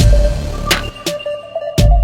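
Electronic background music with heavy bass and sharp drum hits.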